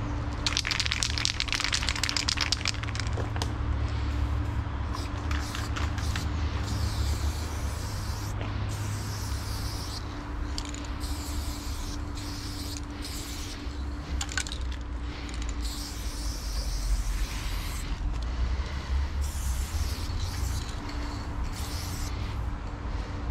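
Aerosol spray-paint can hissing in short and longer bursts as paint is laid onto a stone wall, stopping and starting between strokes. A steady low rumble runs underneath.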